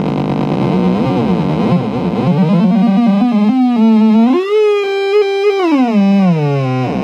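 Homemade Noise Hero synth circuit putting out a loud electronic tone whose pitch wavers and slides as its knobs are turned. Around four seconds in it climbs to about twice its pitch, holds there, then slides back down near the end.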